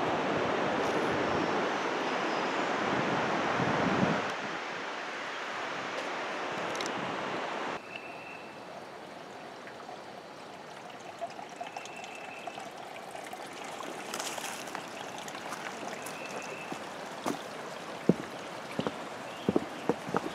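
A small woodland creek trickling over rocks. Under it, a steady rushing noise is loudest for the first few seconds, then drops off sharply about four seconds in and again near eight seconds. Toward the end there are a few short high chirps and scattered light clicks.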